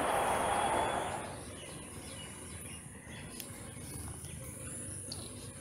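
Steady high-pitched buzzing of insects, with a few faint bird chirps. A loud rushing noise at the start cuts off about a second in.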